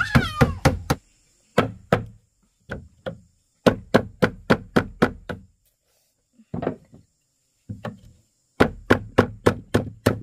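Repeated sharp blows of a tool on wood, like chopping or hammering, in quick runs of several strikes about four a second with short pauses between runs.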